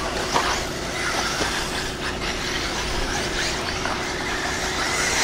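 1/8-scale electric off-road buggies racing, their brushless motors whining up and down in pitch as the cars pass, over a steady hum.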